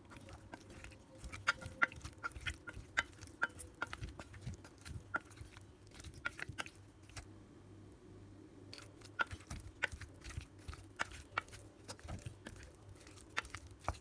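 Wooden spoon mashing boiled potatoes in a stainless steel pot: irregular taps and clinks of the spoon against the pot's metal sides, some ringing briefly. There is a short lull about halfway through.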